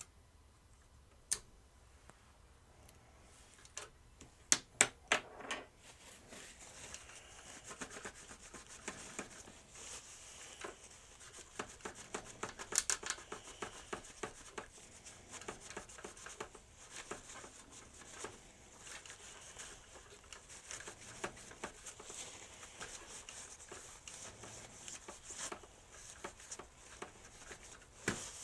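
A few light clicks and knocks as the plastic toy is handled, then from about six seconds steady rubbing and scraping with many small clicks, as old sticker residue is worked off the plastic helicopter body.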